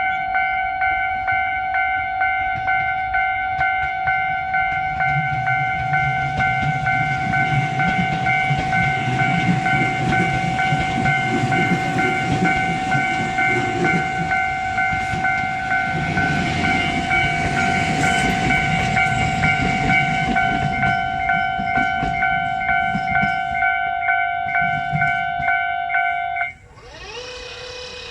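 Japanese railway crossing warning bell ringing in a rapid, steady repeating ding, while two Tobu commuter trains (800 and 8000 series) arrive, rumbling and clattering over the rails. The bell cuts off near the end, leaving a rising whine and a steady hum.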